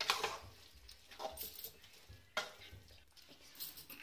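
Wooden spatula stirring thick carrot halwa in a steel kadai, scraping the pan in four strokes about a second apart.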